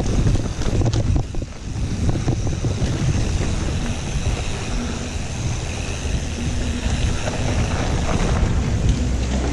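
Wind buffeting the camera microphone over the rumble and rattle of mountain bike tyres and frame on a dirt trail while riding.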